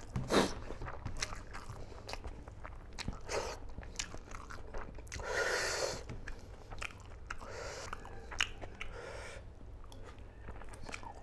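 Close-miked mukbang eating: a man chewing and biting smoked pork and rice, with wet clicks and small crunches of mouth and fingers. A short rushing noise of about a second comes near the middle.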